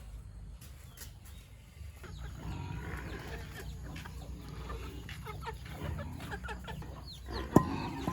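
Farm animals calling in many short, quick clucking calls, starting about two seconds in. A sharp knock comes near the end.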